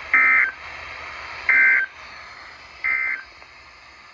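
NOAA Weather Radio Emergency Alert System end-of-message signal: three short bursts of warbling SAME digital data tones, the 'NNNN' code that closes a warning, about a second and a half apart, over light radio hiss.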